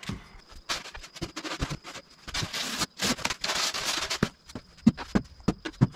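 Expanded polystyrene insulation boards being handled and pulled from a stack: foam scraping and rubbing, with scattered clicks and a few sharp knocks near the end.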